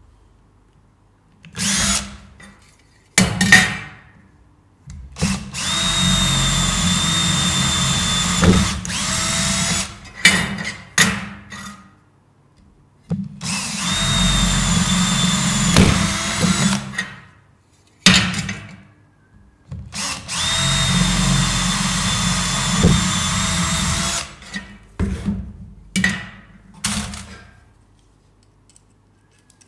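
Cordless drill boring rivet holes through folded sheet metal: a couple of short bursts, then three steady runs of about four seconds each with the motor whining. A few short knocks follow near the end.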